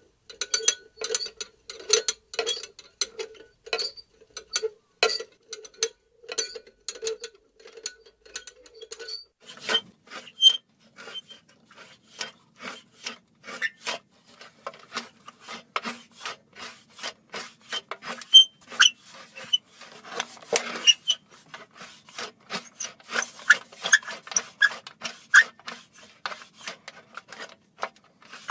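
Metal lantern squeaking and rattling as it is swung and shaken, in short rhythmic strokes about two a second. About ten seconds in, the squeak drops lower in pitch and the strokes come faster.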